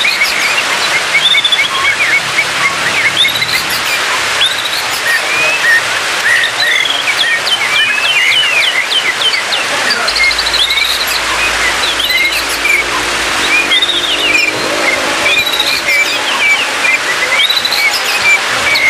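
White-rumped shama (murai batu) singing: a continuous run of varied chirps, trills and short whistled glides, over a steady hiss of background noise.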